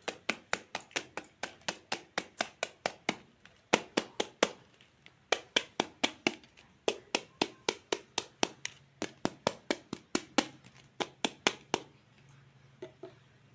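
Rapid, even chopping: sharp plastic taps of a toy knife cutting through toy fruit onto a cutting board, about three or four a second, pausing briefly twice and stopping near the end.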